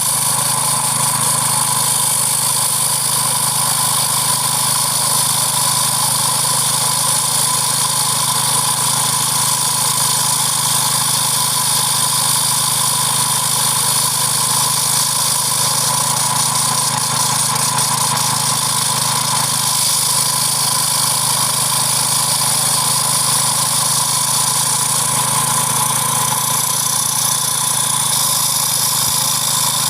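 Engine-driven core drill for concrete and asphalt, its small engine running at a steady speed without change.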